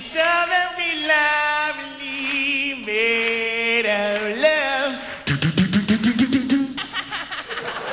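A man singing solo into a microphone with a wide vibrato. About five seconds in he switches to rapid mouth clicks, roughly nine a second, over a rising hummed tone, with the mic held close to his mouth. Applause starts right at the end.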